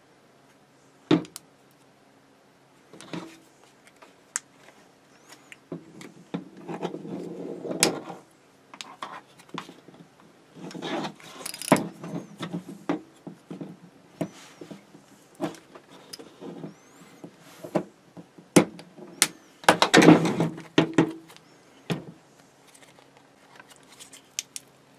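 Stiff plastic clamshell packaging being cut and pried apart by hand: irregular snaps and clicks with short bursts of crackling and rustling, the loudest stretch about twenty seconds in.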